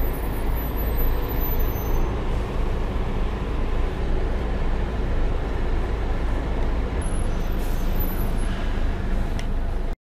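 Scania N230 bus's five-cylinder diesel engine idling steadily at a stop: a deep, even rumble. The sound cuts off suddenly near the end.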